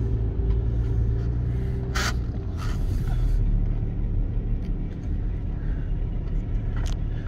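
A car's engine and tyre noise heard from inside the cabin as it pulls away slowly: a steady low rumble.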